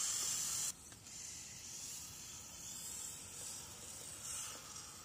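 Steady hiss of heavy rain on wet pavement, louder at first and dropping suddenly to a softer hiss under a second in.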